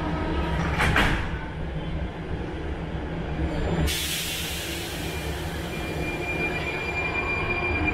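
Prague Metro train at the platform: its doors shut with a knock about a second in, then a sudden loud hiss of air bursts out near the middle and slowly fades. As the train starts to pull away, a thin high whine sets in over a low rumble.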